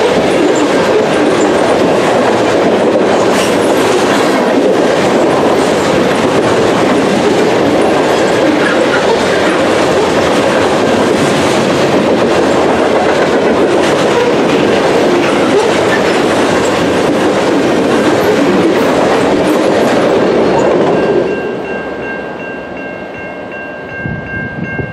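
Covered hopper cars of a freight grain train rolling past on the rails with steady wheel clatter and rumble. About 21 seconds in the last cars go by and the sound drops away, leaving a few steady high tones.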